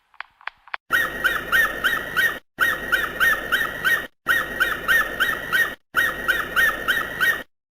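Bald eagle calling: a rapid series of high, thin, chittering whistles, about five a second, in four runs with brief pauses between them, after a few faint single whistles at the start.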